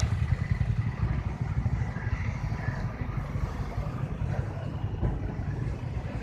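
Steady low outdoor rumble with no clear single event.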